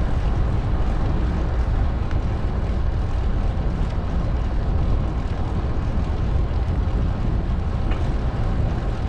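Steady rush of wind buffeting the microphone of a moving bicycle, heaviest in the low end.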